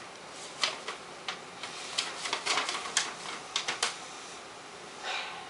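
A folded paper sheet rustling and crinkling as it is unfolded, a run of short, irregular crackles with a brief longer rustle near the end.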